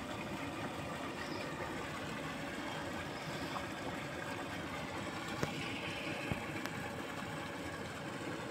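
Steady, even outdoor background noise, like a distant engine or wind, with a few faint ticks about halfway through.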